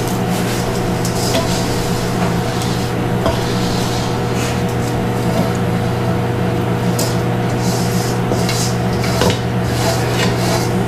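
A microwave oven running with a steady hum, while a wooden spatula scrapes around a stainless steel mixing bowl in short, scratchy strokes.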